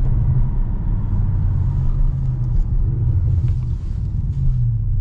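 Audi RS7's twin-turbo V8 and road noise heard from inside the cabin as a steady low rumble, easing slightly past halfway, during a test drive in which the engine runs with no sign of the cylinder 5 misfire.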